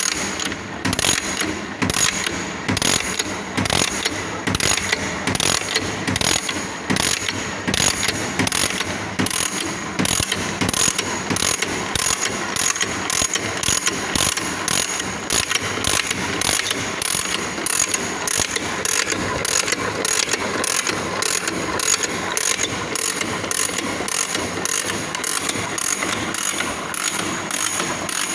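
The gears and moving parts of a sectioned TVS 50 two-stroke engine and gearbox turning over, a steady mechanical clatter with regular clicks.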